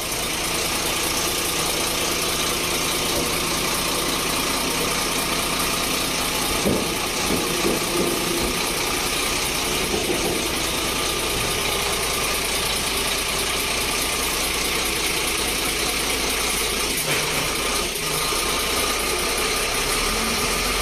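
Foton dump truck's diesel engine running steadily while the dump box's hydraulic hoist is tested raising and lowering.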